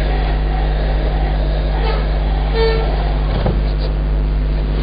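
Steady low hum and hiss of background noise, with a short pitched tone about two and a half seconds in.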